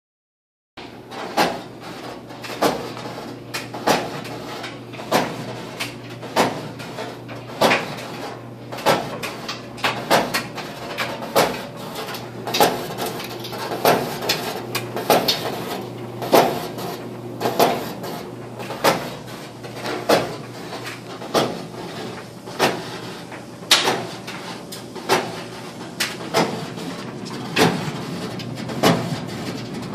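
Maytag Maxima clothes dryer running with a steady hum and a sharp knock about every second and a quarter as the drum turns: the tumbler is hitting the outer shell as it rotates.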